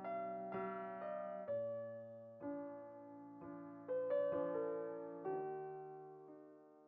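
Slow, gentle background piano music: single notes and soft chords struck about once a second, each left to ring and fade.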